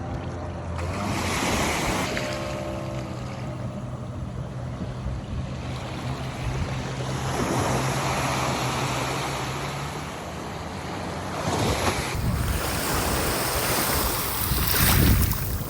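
Sea waves washing onto a beach, surging louder several times, with wind buffeting the microphone. A steady low hum runs under the waves for most of the first ten seconds.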